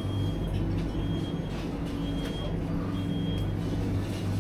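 Supermarket ambience: a steady low hum, with a short high electronic beep repeating about once a second over it and a few faint clicks.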